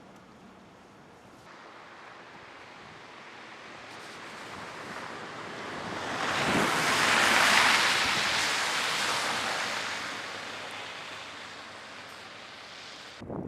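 A vehicle passing on a slushy, snow-covered road: a rushing hiss of tyres and slush builds to a peak about halfway through, fades away, and cuts off suddenly near the end.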